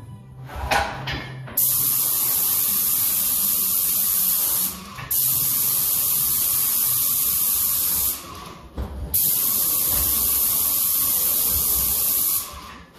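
Airless paint sprayer gun hissing as it mist-coats new plaster, in three long bursts of about three seconds each with short breaks between as the trigger is released.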